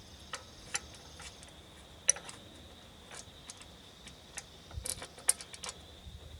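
Scattered sharp metallic clicks and clinks of a wrench working the bolts of a wood chipper's inspection cover, with a quick cluster of clicks about five seconds in.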